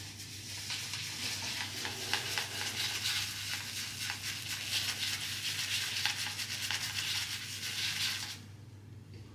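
Shaving brush loading from a tin of Omega Via Barberia Fructi shaving soap: the wrung-out bristles are swirled and scrubbed over the dry soap surface in a steady crackling hiss, which stops about a second before the end.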